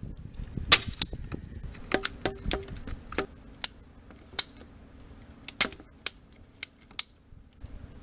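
Ratcheting PVC pipe cutter being squeezed through a PVC pool fill line: a run of sharp, irregular clicks and snaps as the handle is worked and the blade ratchets into the pipe.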